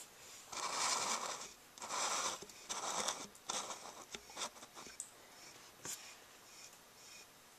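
Scratchy scraping against a clear container, in four bursts over about three seconds, then a few sharp clicks.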